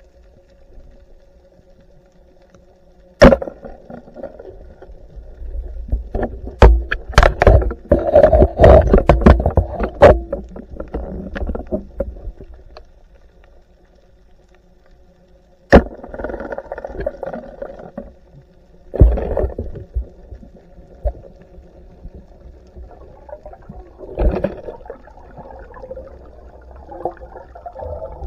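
Underwater sounds of night spearfishing: a speargun shot goes off as a sharp snap about three seconds in, then there are several seconds of clattering and water sloshing as the speared fish is handled, and a second sharp shot comes about sixteen seconds in. A steady hum runs underneath.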